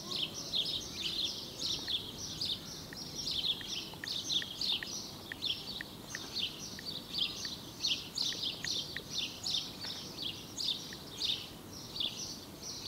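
Small birds chirping, a quick steady string of short, high chirps, several a second.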